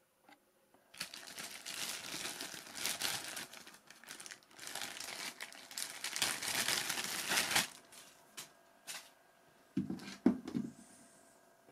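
Clear plastic packaging bag crinkling and rustling for several seconds as it is handled and opened. Near the end come a few sharp clicks and a short cluster of soft knocks.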